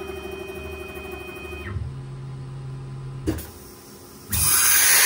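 CNC router's axis drives running with a steady whine during a move, changing to a lower steady hum about two seconds in and stopping with a click a little after three seconds. About four seconds in comes a loud blast of compressed air as the ATC spindle's pneumatic drawbar releases the touch probe into the tool rack.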